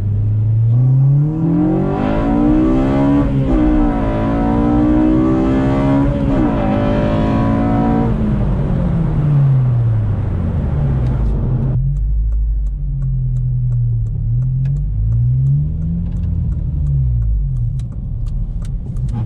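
8th-generation Honda Civic Si's 2.0-litre i-VTEC four-cylinder with a Mishimoto short ram intake, Megan Racing header and DC Sports axle-back, heard from inside the cabin under hard acceleration. The engine note climbs, drops sharply at two upshifts about three and about six and a half seconds in, and climbs again. From about eight seconds it falls away, and once the throttle shuts the engine runs low with small rises and falls in pitch.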